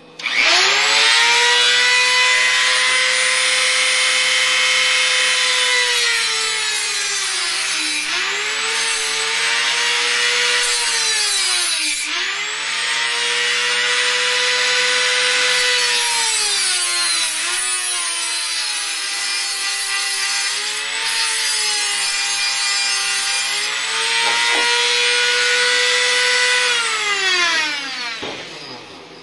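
Dremel rotary tool with an abrasive cutoff disc slitting a carbon-steel hacksaw blade lengthwise: a high motor whine over a harsh grinding hiss. The pitch dips several times and the tool winds down near the end.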